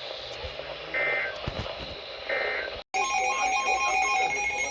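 Emergency Alert System data bursts on a NOAA Weather Radio broadcast: two short, shrill digital bursts about a second and a half apart, the end-of-message code closing a warning. After a brief silent drop-out, a new electronic alert tone with rapid pulsing beeps starts up.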